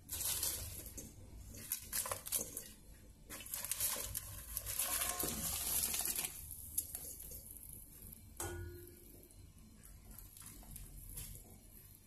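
Chopped onion, onion skins and garlic tipped from a metal bowl into a stainless stockpot of water: clattering, scraping and splashing over a few seconds. About eight seconds in, a single metal clang with a brief ring.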